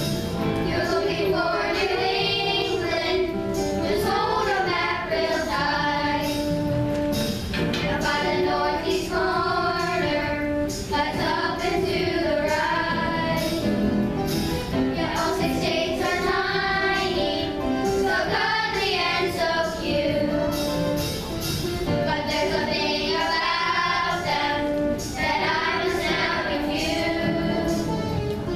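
A children's choir singing a song together in continuous sung phrases.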